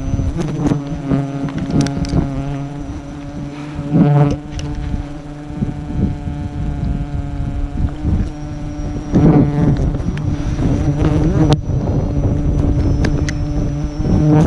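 A swarm of giant honey bees buzzing close around the climber in a steady, loud drone, with occasional knocks and rustles from the climbing gear against the tree.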